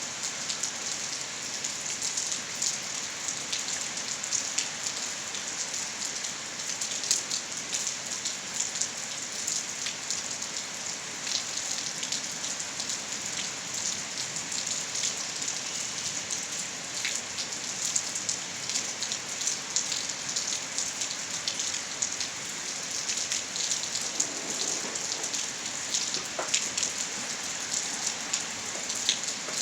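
Steady rainfall, an even hiss with many individual drops ticking sharply throughout.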